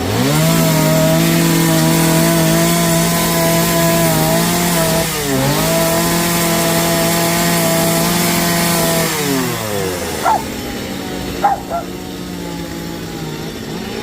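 Small two-stroke chainsaw revving up and held at a steady high speed, with a brief dip about five seconds in. It drops back to idle about nine seconds in and revs up again near the end.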